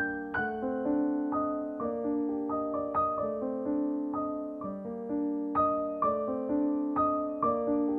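Background piano music: a gentle melody of single notes and chords, a new note struck about every half second.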